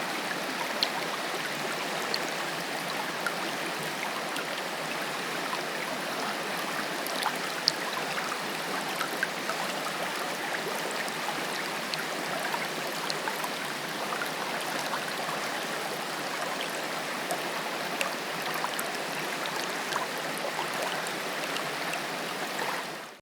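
Waterfall: a steady rush of falling water with small splashes and droplet ticks through it, fading out quickly at the very end.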